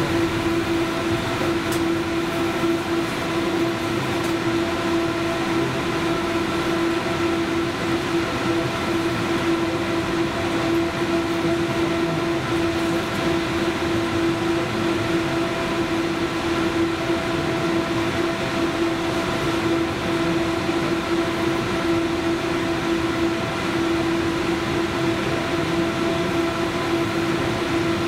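Steady hum at an unchanging pitch from the electrical equipment of a 71-911EM 'Lionet' low-floor tram, heard inside the cab over a constant background rumble.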